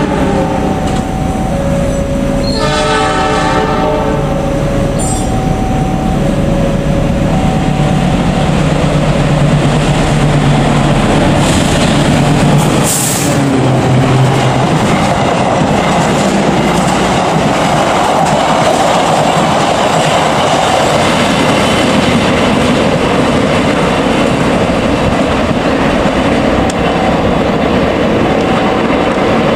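A diesel-electric locomotive sounds its horn in several blasts over the first few seconds. Then a passenger train runs through the station, its engine and wheels rumbling steadily over the track, with a brief high screech about halfway through.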